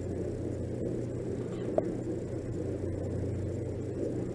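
Steady low hum and background noise, with one faint click a little under two seconds in.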